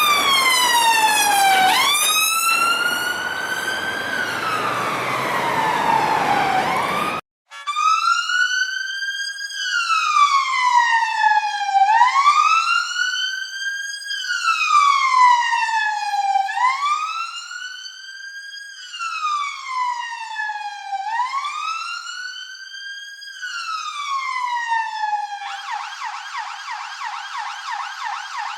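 Police car sirens in a series of separate clips. First comes a wailing siren with some road noise under it; after a brief cut to silence, a clean wail siren rises and falls about every two seconds. Near the end it switches to a rapid yelping warble.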